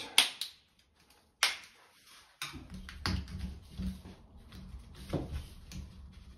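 Hand handling noise of split plastic escutcheon cover plates being fitted over half-inch supply pipes: a few sharp clicks and taps, then a low rumble of handling with scattered clicks from about two and a half seconds in.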